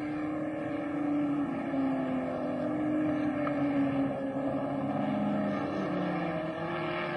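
Racing car engine running at speed. Its note wavers up and down, drops lower about five seconds in, then climbs again near the end.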